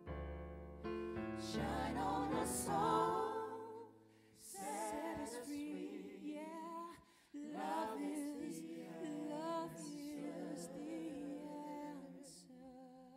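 Live choir and female soloists singing a slow soul ballad, the lead voices wavering with vibrato. A low held note sits under the voices for the first few seconds, and the singing drops away briefly twice before picking up again.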